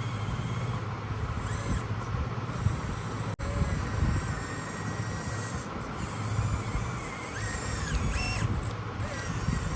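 Small electric RC scale off-road truck (1/16 Toyota Land Cruiser LC79 model) driving, its motor and gears whirring with small rises and falls in pitch. A sudden brief break about a third of the way in.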